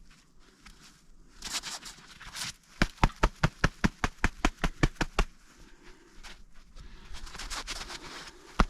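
Rustling and scraping as the snowmobile's air-filter box is handled and cleaned out, then a quick run of about a dozen sharp knocks, roughly five a second, as it is rapped to shake out debris, with a few more knocks at the end.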